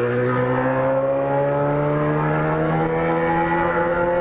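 Yamaha XJ6 inline-four engine running at raised revs: its pitch climbs gently over the first two seconds, then holds steady.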